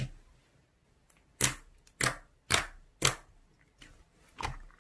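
Slime being pressed and worked by hand, giving a series of short sharp clicking pops, roughly two a second.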